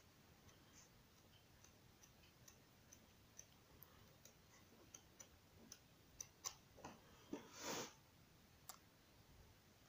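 Faint paper handling as the pages of a colouring book are turned: small scattered ticks and clicks, with a brief rustle of a page about three-quarters of the way through.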